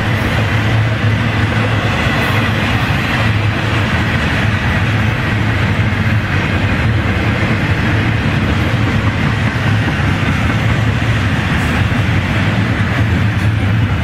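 Florida East Coast Railway intermodal freight train of double-stack container well cars passing: a loud, steady rumble and rattle of steel wheels on rail that doesn't let up.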